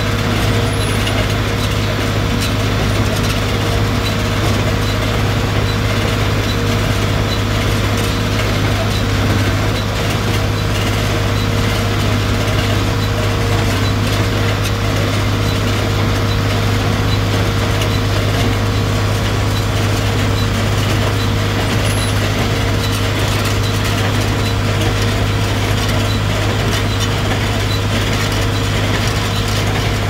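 Tractor engine running steadily under load, pulling a John Deere 327 small square baler that is baling hay, with the baler's mechanism running along with it.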